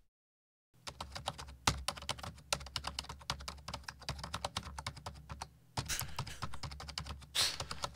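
Rapid computer-keyboard typing, a dense stream of key clicks starting about a second in, with a short break near six seconds. It is a typing sound effect played over the stream to stand for viewers typing their answers.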